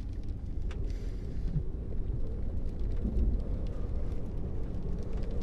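Steady low rumble and road noise of a storm-chasing pickup truck being driven through rain, with wind and rain noise filling the cab through its blown-out rear windows and scattered light ticks.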